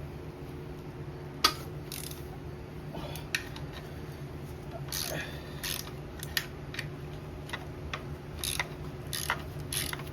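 Socket ratchet clicking in short bursts as E-Torx bolts on the starter are turned out, with one sharp metallic clack about a second and a half in. The starter bolts were already loose.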